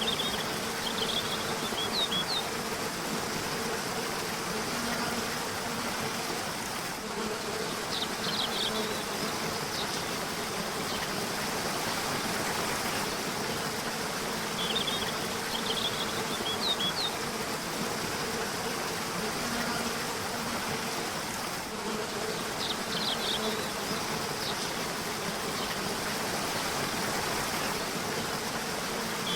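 River water rushing steadily, with small birds chirping in short bursts about every seven seconds. A faint steady low buzz runs underneath.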